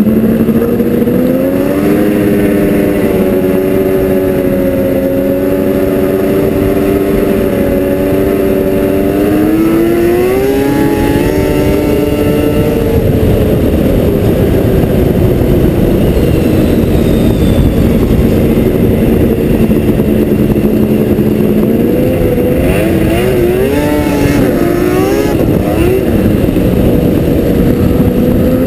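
Yamaha SRX 700 three-cylinder two-stroke snowmobile engine running through a loud racing exhaust can while riding. It holds a steady pitch, revs up about ten seconds in, and near the end rises and falls several times with changes of throttle.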